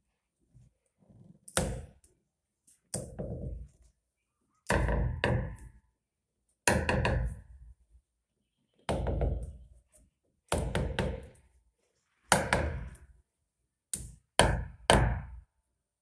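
Irregular knocks and thunks of hard plastic on plastic, a dozen or so spaced a second or two apart, as a plastic elbow fitting is handled and screwed onto the threaded tank connector of a plastic water tank.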